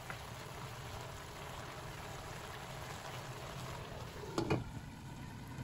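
Butternut squash and bok choy simmering in a little broth in a wok, with a steady bubbling. About four and a half seconds in, a glass lid is set down on the wok with a brief clatter.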